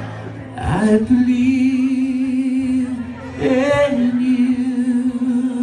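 A male singer holds two long notes with vibrato, one after the other, over a quiet guitar accompaniment.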